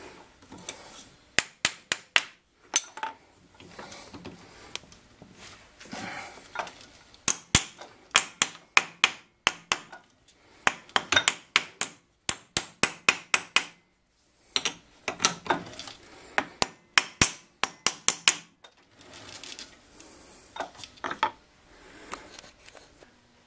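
Sharp metal clicks and taps at a three-jaw lathe chuck while copper jaw covers are fitted over its jaws. They come in quick runs of several a second, with short pauses between.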